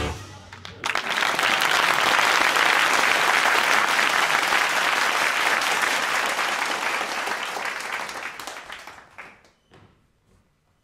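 Audience applauding. The clapping swells in about a second in, holds steady, then dies away near the end.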